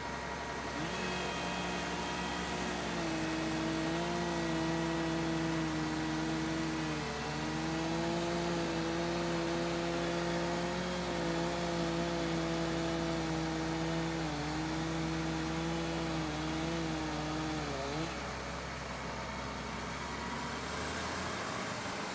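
Old wheel loader's diesel engine throttled up as the machine turns and drives, its pitch holding with small dips and rises, then dropping back about 18 seconds in to a steady low hum.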